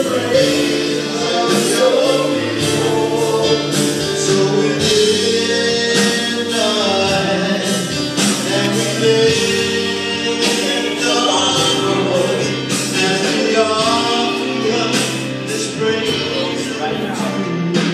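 Gospel worship music: voices singing held, sliding notes over a band, loud and continuous.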